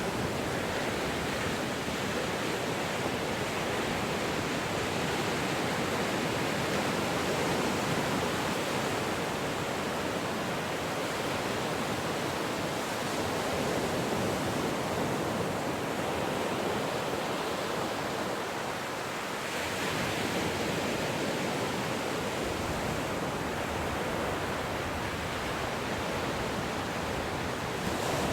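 Ocean surf: waves washing in a continuous rush of water noise, swelling and easing every few seconds, with a brief lull a little past the middle.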